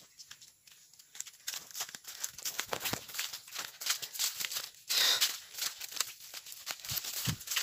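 Dense crackling and rustling of leaves and brush from walking through leafy undergrowth, starting about a second in, with a louder brush about five seconds in and a few dull low thumps near the end.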